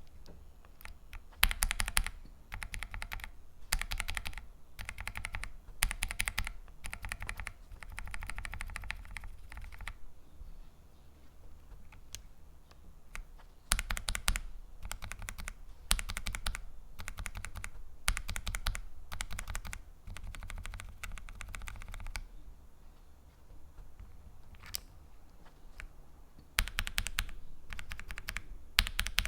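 Kailh MX-style linear mechanical keyboard switches being typed on in three runs of rapid keystrokes, about eight seconds each, with a few seconds' pause between runs.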